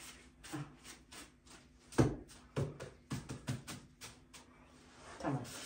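Gloved hands slapping and pressing balls of pide dough on a floured counter: a run of soft thumps and taps, the heaviest about two seconds in.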